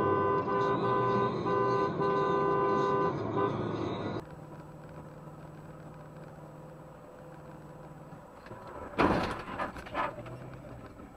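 A car horn sounding in a series of short blasts, then, after a cut, steady road noise and about nine seconds in a loud bang followed by two smaller knocks: cars colliding.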